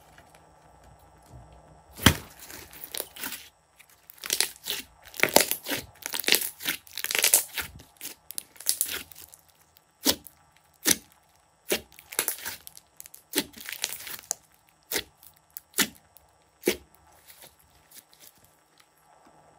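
Hands squeezing and stretching thick glossy slime, making sticky crackles and sharp pops. The crackles start about two seconds in and come in dense flurries, then thin out to single pops about once a second near the end.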